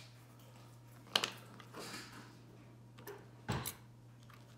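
Small clicks and taps of handling a ceramic fuse in an open multimeter's fuse clips: one sharp click about a second in, and a louder cluster of clicks with a dull knock near the end.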